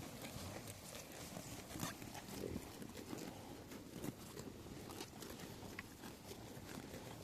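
Sheep in a pen: faint, scattered short animal sounds among irregular clicks of hooves.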